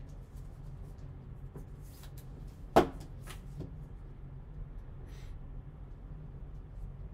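A hard plastic card holder is set down on a tabletop with one sharp click a little under three seconds in, followed by a lighter tap about half a second later. Faint handling ticks and a brief rustle of cards and wrapper sit over a steady low hum.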